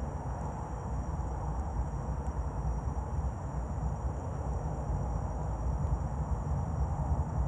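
Low rumble of a CN freight train approaching out of sight, slowly growing louder, with wind buffeting the microphone.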